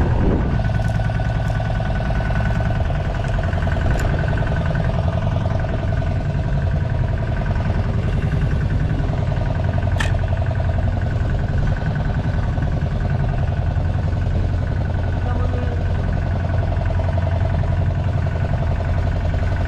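A boat engine running steadily at a constant speed, a continuous drone. One sharp click comes about ten seconds in.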